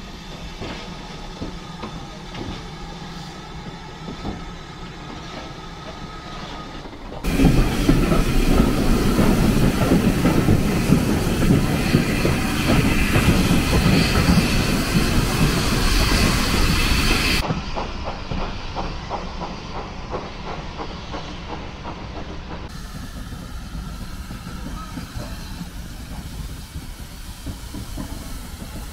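GWR 5600 class steam tank locomotive 5643 standing with a steady hiss. After a cut, the loud rushing noise of the moving train heard from a carriage, about ten seconds long, gives way to quieter regular clicking of wheels over rail joints.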